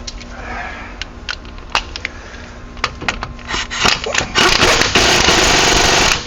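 A few sharp metal clicks and taps of hand tools on the brake caliper bolts. Then, about four seconds in, an impact wrench runs loudly for about two seconds on the caliper bolts and cuts off suddenly.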